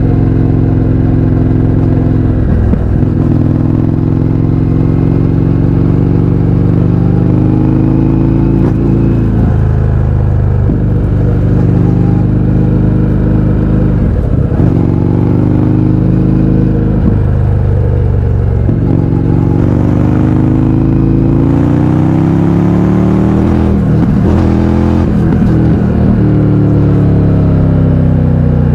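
Indian FTR 1200's V-twin running through an Akrapovič exhaust with the baffles removed, under way. The revs climb and drop back with a gear change every few seconds, then fall away, rise again and ease off near the end.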